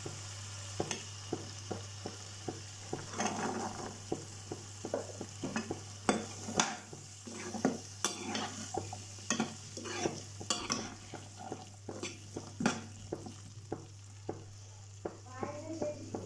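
A spatula stirring green peas into frying onion masala in a nonstick pan: frequent short scrapes and taps against the pan over a steady sizzle. A steady low hum runs underneath.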